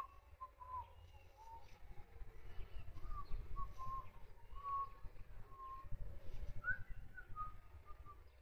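A string of short, clear whistled notes, about a dozen, mostly near one pitch with a few brief slides up or down, over a low rumble.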